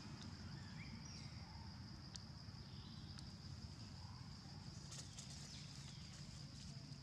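A steady high-pitched insect drone over low outdoor rumble, with a few faint clicks, the last about five seconds in.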